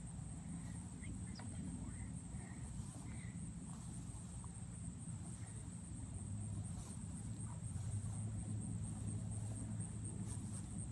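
Steady high-pitched chorus of insects, a continuous fine pulsing buzz, over a low steady rumble.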